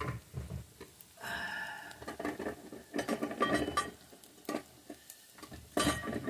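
Metal pressure cooker lid being twisted open and lifted off the pot: metal scraping and squealing against the rim about a second in and again around three seconds in, with knocks, and a sharp clank near the end.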